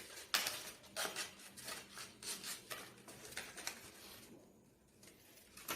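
Paper rustling and crinkling as a sheet is folded and pressed by hand, in a string of short irregular rubbing sounds that die down after about four seconds.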